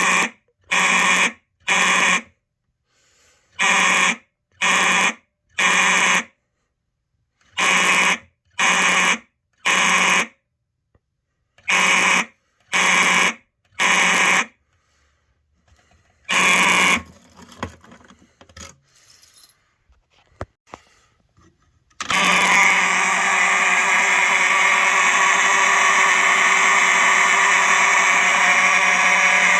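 Simplex mechanical fire alarm horns buzzing in the code 3 temporal pattern: four rounds of three short blasts, each round followed by a pause of about a second and a half. After one more single blast and a few faint clicks, the horns come on in a steady, unbroken sound about three quarters of the way through.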